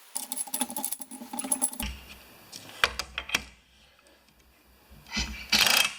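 Metal clicking and rattling as the nut is run onto the mower spindle's shaft, with a few sharp clicks about three seconds in. A loud, short burst of noise near the end.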